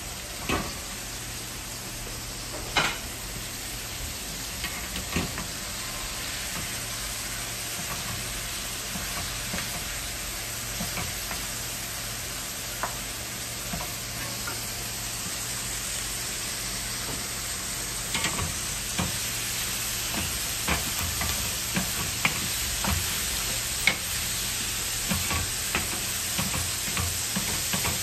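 Minced meat sizzling steadily in a flat metal pan over a gas burner, with a wooden spoon stirring it and scraping and knocking against the pan in scattered sharp clicks, more often in the second half.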